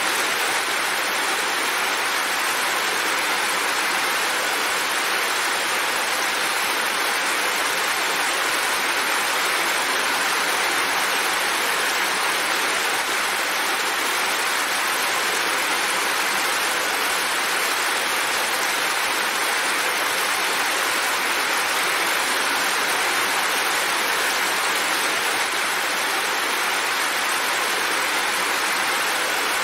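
Steady heavy rain, with water streaming off a roof edge, making an even hiss that does not change.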